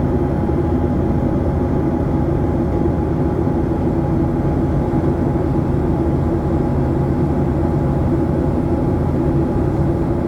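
Cabin noise of a Boeing 737-700's CFM56-7B jet engines at high takeoff or climb thrust: a steady, loud rumble with a constant mid-pitched hum above it.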